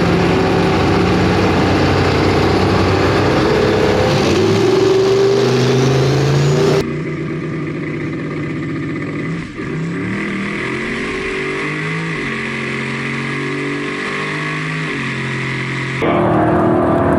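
Drag-racing truck engine accelerating hard down the strip, its pitch climbing and dropping back in steps through gear changes. The sound changes abruptly twice, as between separate recordings.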